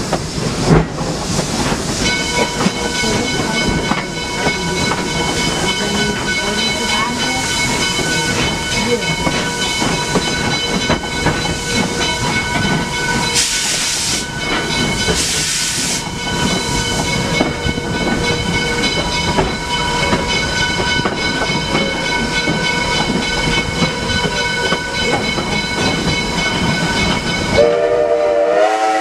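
Pennsylvania Railroad 0-6-0 steam locomotive running, with a steady hiss and rumble of steam and a thin, steady whine through most of it, broken by two short bursts of louder hiss midway. Near the end its Reading six-chime whistle opens, several tones sounding together and rising in pitch as it comes on.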